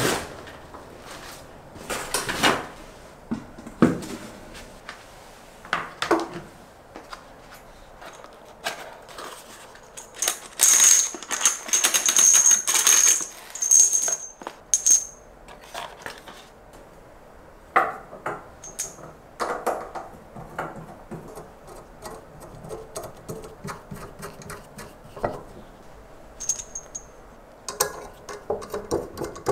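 Hands unpacking and assembling a stainless steel pot lid organizer: cardboard packaging rustling and scattered clicks and clinks of metal parts against each other and a wooden table, busiest in a stretch about a third of the way in.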